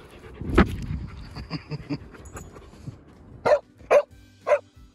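A dog barks three times in quick succession, about half a second apart, near the end. A brief, louder burst of sound comes about half a second in.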